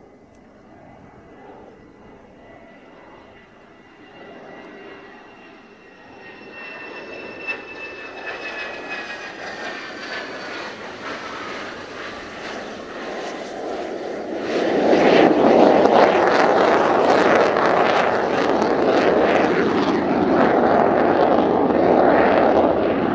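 Mitsubishi F-2 fighter's single F110 turbofan on a low approach, growing louder as the jet nears. Its high whine slides down in pitch as it passes. About fifteen seconds in, a loud jet roar sets in suddenly and stays as the jet flies away.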